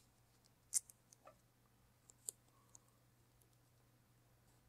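Masking tape being handled and pressed onto a vinyl rocker graphic on a car door: about four faint, short ticks and crackles in the first three seconds, otherwise near silence.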